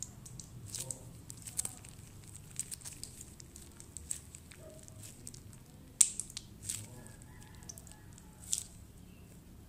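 Plastic pouch of white glue crinkling and clicking as it is squeezed out into a plastic cup, with scattered sharp clicks, the loudest about six seconds in.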